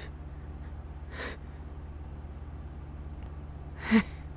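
A woman's pained breathing: a short breath about a second in, then a sharper, louder gasp with a little voice in it near the end, from an injured character. A steady low hum runs underneath.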